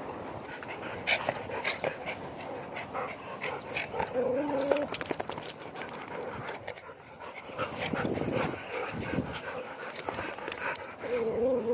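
A dog whining briefly twice, about four seconds in and again near the end, with panting and rustling close by in between.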